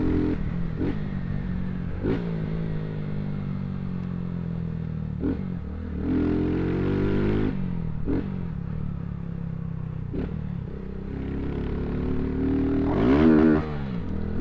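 Motorcycle engine running on the road, its pitch rising and falling with the throttle and changing every couple of seconds. Near the end a brief, louder sound swoops up and back down in pitch.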